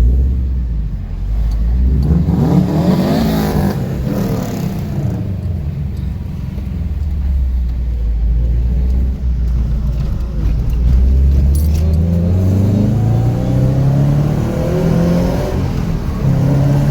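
Scion FR-S's 2.0-litre flat-four engine, fitted with Tomei unequal-length headers, pulling up through the revs with a low, uneven boxer rumble; the engine note rises about two seconds in, settles, then climbs again from about ten seconds.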